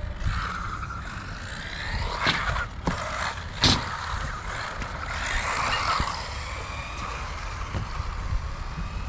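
Small electric RC buggy motor whining up and down in pitch as it is driven hard on concrete, with a few sharp knocks of the car landing or hitting something; the loudest knock comes a little under four seconds in.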